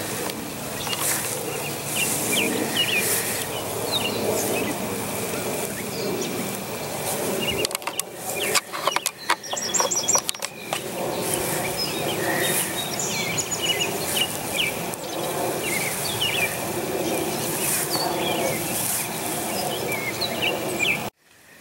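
Birds chirping and calling in short repeated notes over steady outdoor background noise, with a brief cluster of clicks about halfway in. The sound cuts off abruptly near the end.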